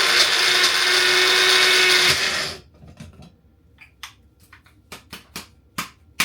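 Electric blender running steadily, blending the jerk chicken marinade of spring onion, ginger, thyme, scotch bonnet and garlic, then cutting off suddenly about two and a half seconds in. A string of separate clicks and knocks follows.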